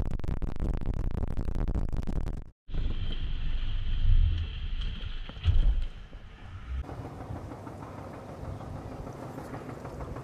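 Small motorboat under way, with wind buffeting the microphone and the boat's engine and hull noise. After a sudden break, a steady high whine runs over a few low thumps, then gives way near the end to a quieter, even rush.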